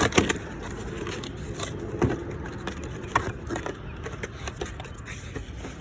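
Handling noise from unpacking a boxed cordless ratchet set: irregular clicks, taps and scrapes of the packaging and plastic case, with a few sharper knocks.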